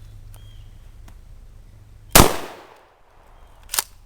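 A single shot from a Stevens Model 320 12 gauge pump-action shotgun firing 7 shot birdshot, with a report that rings and fades over about half a second. A shorter, quieter sharp clack follows about a second and a half later.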